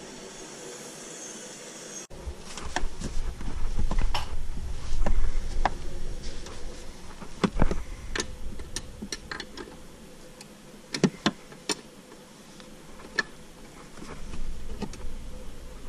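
Scattered clicks and knocks of hand tools and metal parts being handled at a car's rear wheel, with a low rumble of handling noise underneath.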